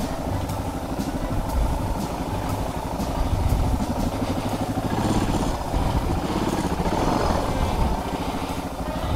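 Suzuki DR650's single-cylinder engine running steadily at low revs, with a faint ticking about twice a second.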